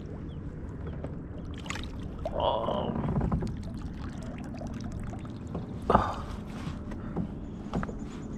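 Steady low outdoor rumble with scattered small clicks and knocks, and one sharper knock about six seconds in.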